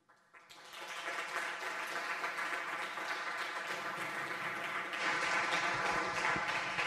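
Audience applauding, the clapping starting about half a second in and swelling to a steady level.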